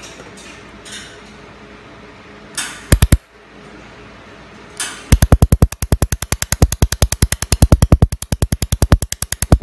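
Handheld laser welding gun firing pulses into the joint of a square metal tube: a few scattered snaps about three seconds in, then from about five seconds in a rapid, even train of sharp snaps, roughly nine a second, as the laser pulses strike the metal.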